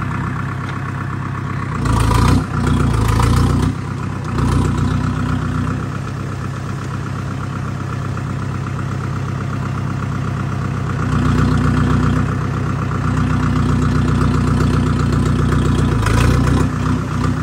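Tractor engine running steadily, with louder rough patches about two to four seconds in and again near the end.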